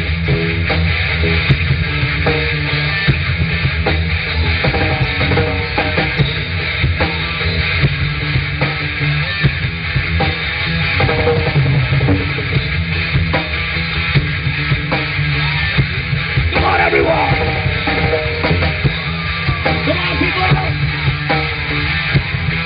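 Live rock band playing, with a drum kit and electric guitar.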